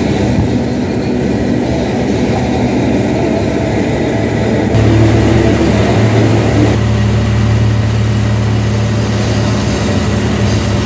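John Deere 6330 tractor's diesel engine running steadily under load while pulling a John Deere 459 round baler, a constant low drone. Its tone changes abruptly about five seconds in and again about seven seconds in.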